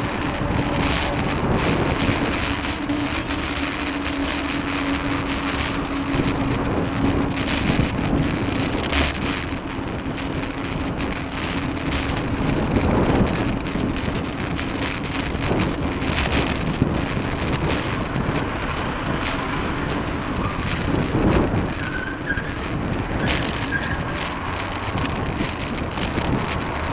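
Wind and road rumble on the microphone of a camera riding on a moving bicycle, with occasional knocks from the bike over the pavement and motor traffic running alongside. A steady hum fades out about halfway through.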